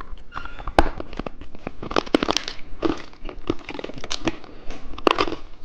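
Plastic candy wrapper crinkling and tearing as it is handled, a dense run of crackles with sharper rips about a second in and near the end.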